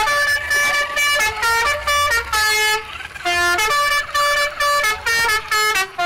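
A musical horn playing a tune in short honking notes that step up and down in pitch, about two notes a second, with brief gaps between them.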